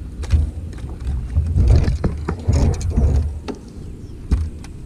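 Irregular thumps and sharp knocks on a fishing boat's hull and rod holders, with rustling, as a hooked crappie is lifted aboard on a long rod.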